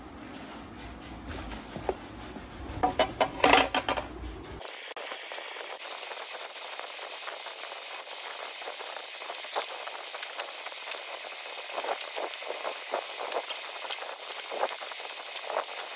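Plastic packaging, bubble wrap and stretch film, crinkling and tearing as it is pulled off a metal motorcycle top rack, with a louder cluster of crackles about three seconds in.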